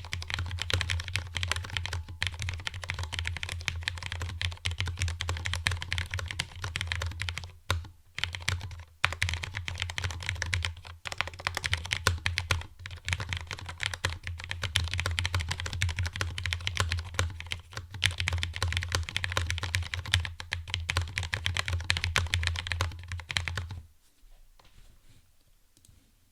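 Fast, continuous typing on a Filco Stingray TKL low-profile mechanical keyboard with Cherry MX Red linear switches, resting on a thick desk mat. The typing breaks off briefly twice about a third of the way in, then stops shortly before the end.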